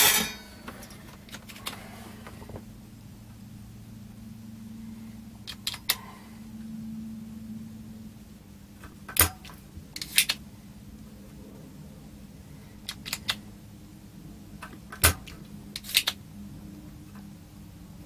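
Desoldering work on a circuit board's IC pins: a scattering of sharp clicks and taps, some in quick pairs, over a steady low hum.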